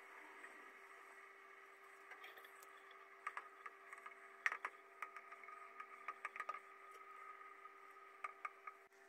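Faint steady hum with a light hiss, and scattered short clicks and ticks from about three seconds in as a steel bolt gripped in a metal clamp is dipped into a hot electroplating bath.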